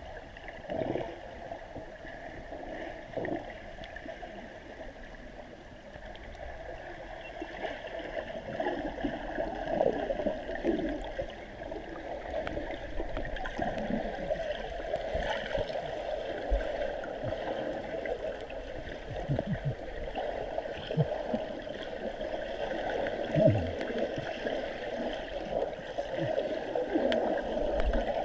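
Water gurgling and sloshing steadily, with a few louder swells.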